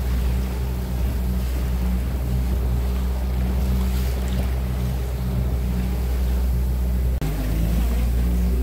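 Motorboat engine running steadily under way, a low hum over the rush of water and wind on the microphone, with a brief dropout about seven seconds in.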